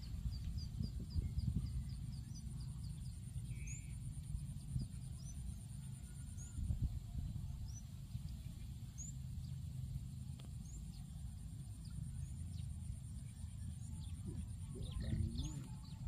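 Wind buffeting the microphone in an open field, a gusty low rumble. Over it run a faint steady high whine and short rising chirps, a quick run of them at the start and then one every second or two.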